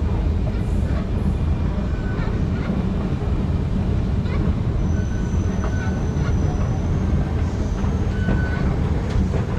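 Steady low machine rumble of an underground MRT station heard from a moving escalator, with a thin high whine and a few short faint tones over it partway through.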